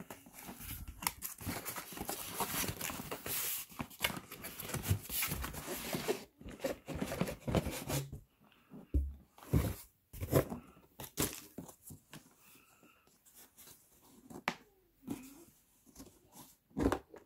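Cardboard packaging being handled and opened, a dense crackling noise for about six seconds. Then scattered clicks and knocks as the hard plastic carrying case is handled, with a loud knock near the end as its latch is worked.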